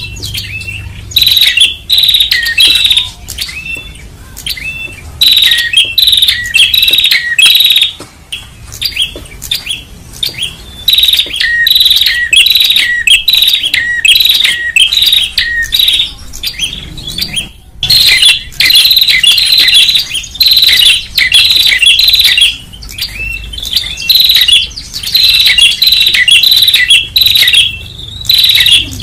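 Prenjak (small Indonesian tailorbirds and prinias) calling noisily in loud, rapid bursts of sharp chirps, with short pauses between the bursts. This is a bird-lure recording meant to draw in prenjak.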